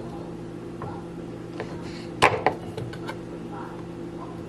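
Kitchen knife cutting raw chicken breast into small pieces, the blade knocking against the cutting board a few times, loudest about two seconds in, over a steady low hum.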